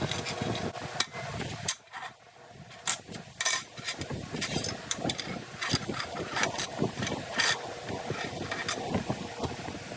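Irregular sharp knocks and clanks, about a dozen spread unevenly, over a steady low background noise.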